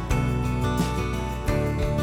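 Instrumental music with a new note or chord every fraction of a second, no singing.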